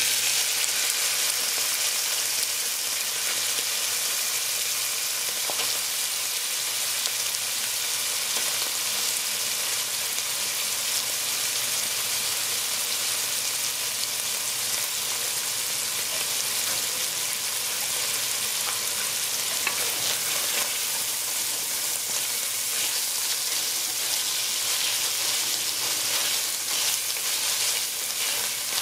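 Flaked saltfish frying in hot oil in an enamelled cast-iron pot: a steady sizzle that starts suddenly as the fish goes in, with a wooden spoon stirring and scraping through it near the end.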